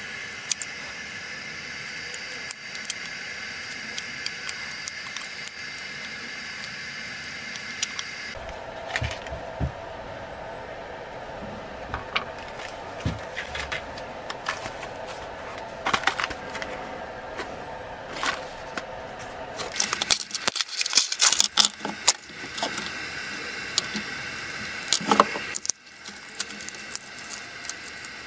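Workbench handling noise: scattered clicks and taps of small metal wedges and tools being picked up and set down, with light jangling, over a steady background hum. About two-thirds of the way through comes a dense run of crackling clicks, the loudest part.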